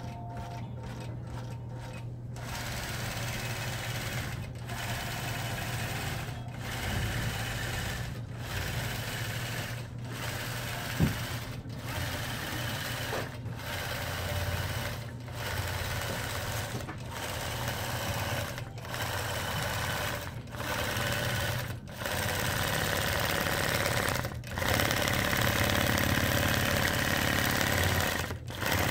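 Gammill longarm quilting machine running under computer control, its needle stitching a pattern through a layered quilt: a steady mechanical hum with brief breaks every couple of seconds.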